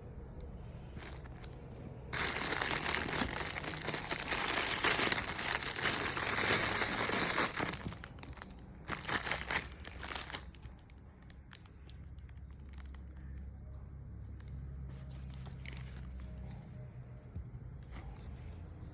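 Packaging wrapper crinkling and tearing as it is opened, dense and loud for about five seconds starting two seconds in, then a few shorter crinkles. After that only a low steady hum remains.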